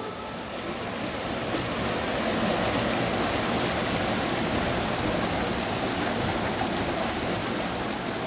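Fast water of a small rocky hill river rushing in shallow rapids between boulders: a steady, even rush that swells slightly about two seconds in.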